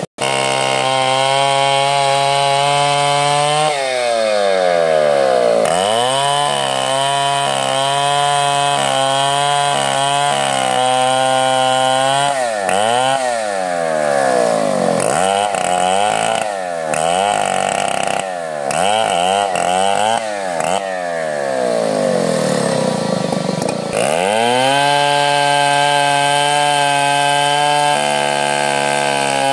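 Two-stroke chainsaw cutting teak, the engine held at high revs, its pitch repeatedly dropping and climbing back as the chain bites into the wood, then steady at full revs again near the end.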